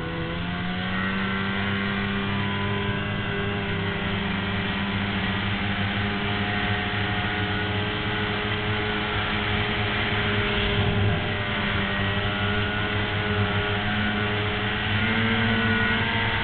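Snowmobile engine running at steady speed while riding, its pitch rising a little about a second in and again near the end, over a steady rushing noise.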